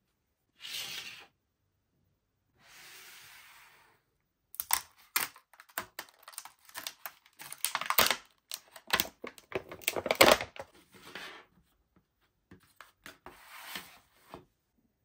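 Stiff plastic blister packaging crinkling and crackling as it is pulled open by hand, a dense run of sharp crackles and snaps. Before it come two short soft rustles, and a few lighter rustles follow near the end.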